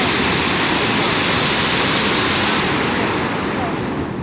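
Chitrakoot Falls on the Indravati River, a large waterfall, rushing with a loud, steady roar of falling water; about three seconds in the sound turns duller and a little quieter.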